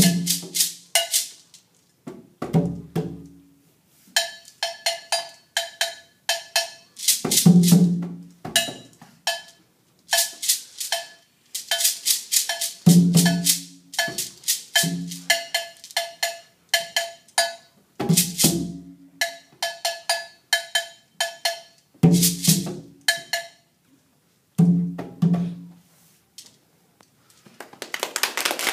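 Two djembe hand drums and small wooden hand percussion played in a rhythm piece: short groups of low drum strikes alternate with quick runs of sharp wooden clicks. Near the end the playing stops and clapping starts.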